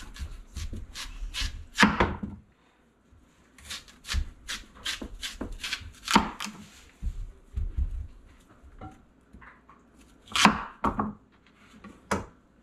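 Chef's knife cutting through a large raw kohlrabi on a cutting board: a run of sharp knife strokes and knocks of the blade on the board, the loudest about two, six, ten and twelve seconds in.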